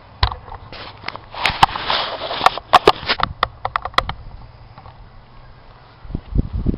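Handling and movement noise: a run of sharp clicks and knocks with rustling over the first four seconds or so, then a few low thumps near the end.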